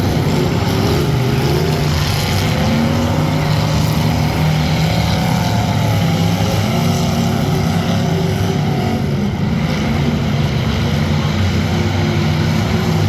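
Demolition derby car engines running loud and steady, their pitch wavering up and down a little.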